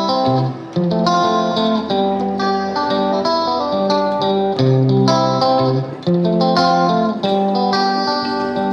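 Instrumental background music, notes changing in a regular repeating pattern.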